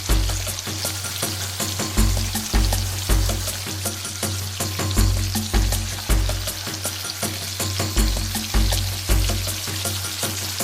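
Fried rice frying in a hot pan with a steady sizzle, and frequent clicks and scrapes of a utensil stirring it. Background music with a low bass pulse plays over it.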